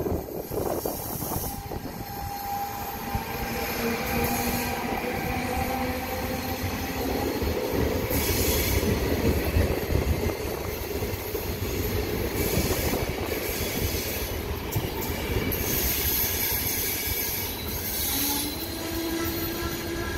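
Regional train hauled by an E464 electric locomotive rolling slowly past at a station platform: a continuous rumble of wheels and coaches on the rails, with steady whining tones that come and go. A tone steps up in pitch near the end.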